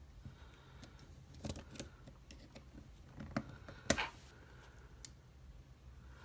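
Scattered light clicks and taps of small metal tools working on a padlock, with a sharper knock about four seconds in.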